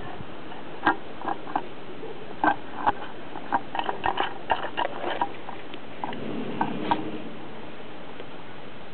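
A cat eating wet food from an open tin: irregular wet smacking and chewing clicks, busiest in the middle, over a steady background hiss.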